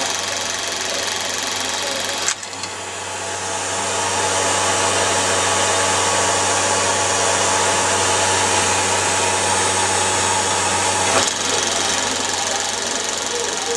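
Kalart Victor Model 65-10 16mm sound projector running: a steady mechanical clatter with a low hum. It jumps louder about two seconds in and drops back near the end.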